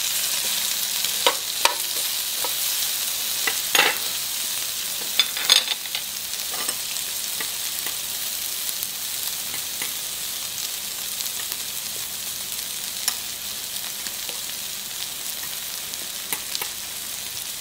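Meat, mushrooms and green onions sizzling on a hot ridged grill pan with a steady hiss. Metal tongs click against the pan a few times in the first six seconds or so; after that the sizzle carries on almost alone.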